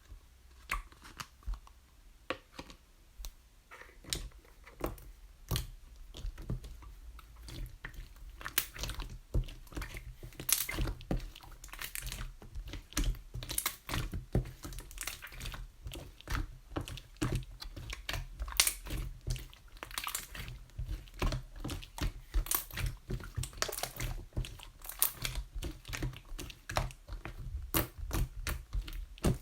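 Three-colour slime worked by hand, giving rapid clicking and crackling pops as trapped air bursts. The clicks are sparse at first and grow dense after several seconds.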